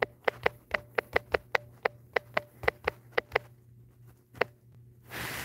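Quick taps on a smartphone's on-screen keyboard while a search is typed, about four clicks a second, stopping after about three and a half seconds with one more tap a second later. A short soft hiss comes near the end.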